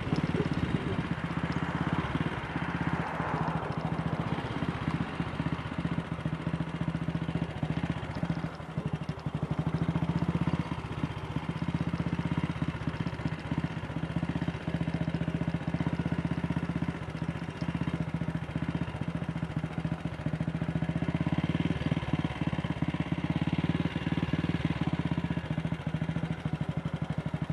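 Single-cylinder engine of a classic AJS Model 8 motorcycle running steadily as the bike is ridden along.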